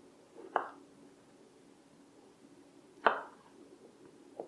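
Kitchen knife cutting cherry tomatoes into quarters on a cutting board: three separate chops, about half a second in, around three seconds in, and just before the end.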